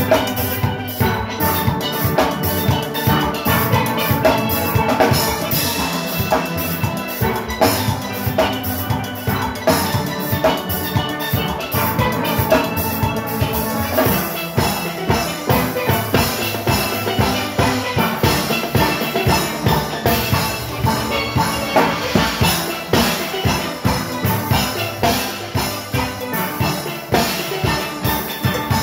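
A steel orchestra playing live: steelpans, including barrel bass pans, carry the tune over a steady, driving engine-room groove of drum kit, timbales and cymbals.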